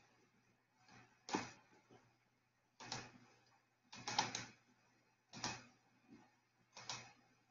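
Faint, sharp taps in a small room, about one every second and a half, with a quick run of three about four seconds in.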